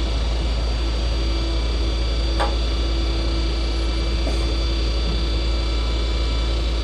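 Rollback tow truck's engine idling with a steady low rumble and hum. A single short click comes about two and a half seconds in.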